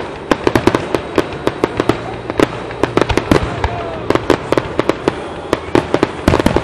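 Aerial fireworks shells bursting in quick succession: a dense run of sharp bangs and crackles, several a second.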